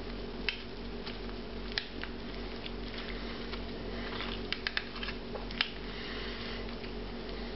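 Silicone spatula pressing a cream sauce and minced vegetables through a metal mesh sieve: soft wet squishing and scraping, broken by a few sharp clicks, three in quick succession about four and a half seconds in. A steady low hum runs underneath.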